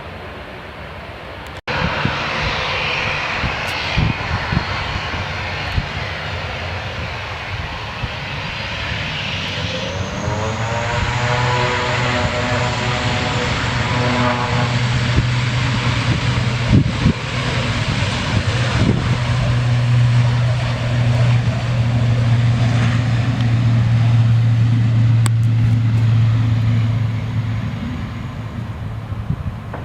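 Aircraft engines running as a plane passes at an airport. The roar builds, with a whine that bends in pitch about a third of the way in and a strong steady low hum, then eases off near the end.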